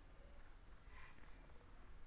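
Near silence: faint room tone, with one faint brief sound about halfway through.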